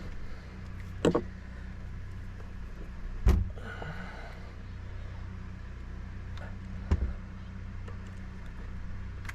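Three sharp knocks, about one, three and seven seconds in, from work on a stuck rubber impeller being forced out of a boat engine's raw-water pump housing. They sound over a steady low hum.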